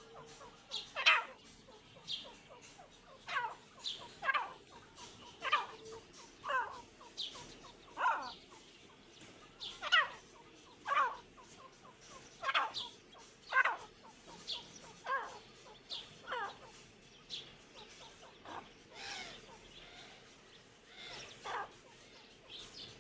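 A pair of Irani teetar partridges calling over and over, short calls that sweep downward, about one a second. The calls become sparser and fainter over the last several seconds.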